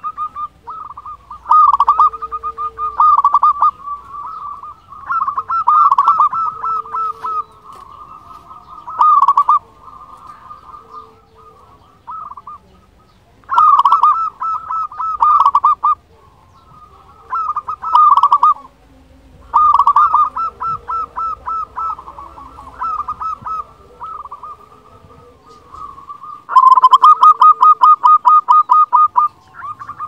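Zebra dove (perkutut) singing: phrases of fast staccato cooing notes, repeated every few seconds, the loudest phrase near the end.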